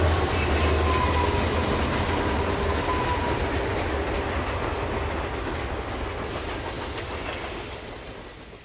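Freight train running past on the rails, its wheels clattering with a low rumble. The sound fades gradually away over the last few seconds.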